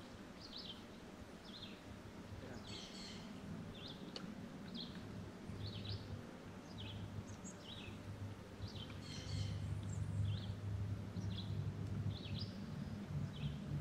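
Birds chirping: short, high calls repeating more than once a second, over a low steady hum that grows louder about halfway through.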